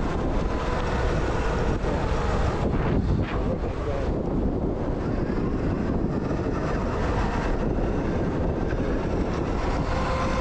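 Zero FX electric motorcycle being ridden off-road: a steady motor whine under heavy wind noise on the microphone and rumble from the rough ground.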